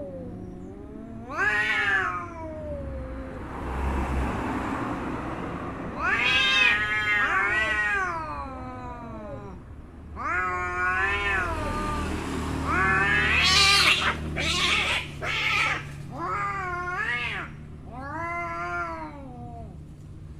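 Cats caterwauling in a fight: a string of long, drawn-out yowls that waver up and down in pitch, broken by noisier, harsher stretches, the aggressive yowling of tomcats squaring off.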